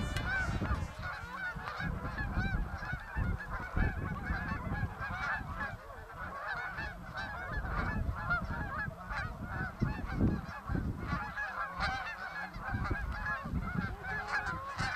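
A large flock of Canada geese honking, with many calls overlapping steadily, over a low uneven rumble.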